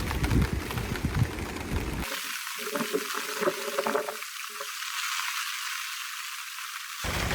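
Heavy rain falling, a steady crackling hiss with a few irregular low knocks in the first two seconds. About two seconds in the low end drops out and the rain sounds thin and hissy until near the end.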